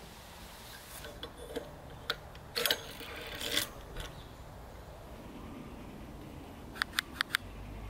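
Sharp plastic-and-metal clicks and rattles as a bicycle brake lever and a motorcycle-type twist throttle are handled on the handlebar. Scattered clicks come in the first half, with the loudest cluster about three seconds in, and a quick run of four clicks near the end.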